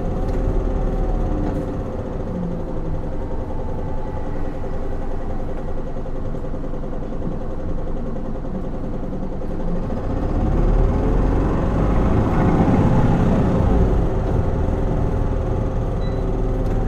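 Isuzu Erga city bus's 4HK1-TCS inline-four turbodiesel running, heard from inside the passenger cabin, a low hum with a steady whine over it. It swells louder for a few seconds past the middle, then eases back.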